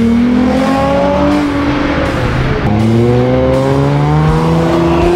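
A car engine revving up under hard acceleration: its pitch climbs, drops once about two and a half seconds in at a gear change, then climbs again.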